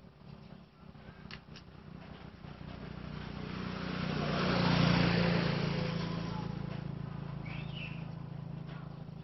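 A motor vehicle passing by: its engine and road noise swell to a peak about halfway through, then fade away. A short high chirp comes near the end.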